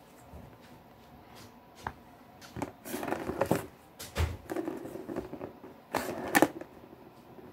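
A plastic ball rolling around the track of a circular cat scratcher toy, with short clatters and scrapes on and off as a kitten bats at it, loudest about a second in from the middle and again near the end.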